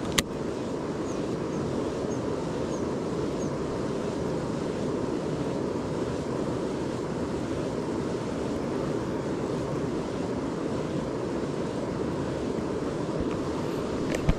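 Steady rush of river water running over rapids. A sharp click comes just after the start and a smaller one near the end.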